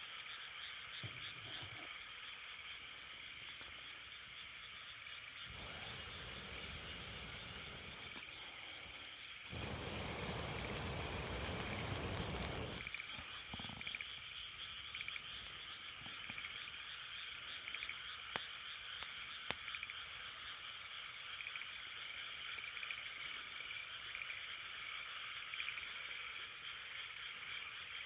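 A chorus of frogs calling steadily in a dense, pulsing trill. A louder rush of noise swells about a third of the way in and fades a few seconds later. A few sharp campfire crackles pop around two-thirds of the way through.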